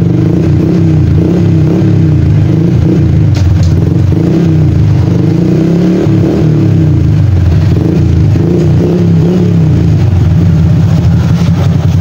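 Honda Wave 125i's single-cylinder four-stroke engine running through an aftermarket RS8 dual-tip muffler, loud and steady with a few light rises in revs.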